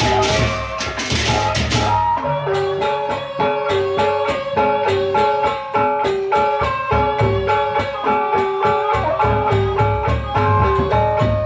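Sasak gendang beleq ensemble playing: large barrel drums are beaten under a crash of many hand cymbals (kenceng) in the first two seconds. A fast repeating pitched melody then runs over steady drum strokes.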